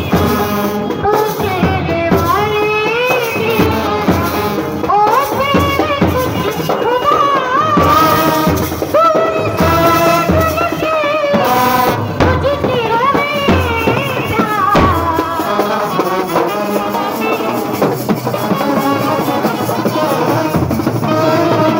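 Indian brass-band style live music: a wavering melodic lead sung or played over steady beats from a large bass drum and a side drum struck with sticks.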